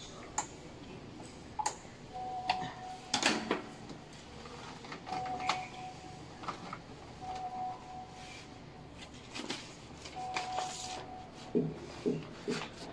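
Scattered clicks and rustling of electrical wires being handled and pushed into a breaker panel, with a faint steady tone sounding briefly four times.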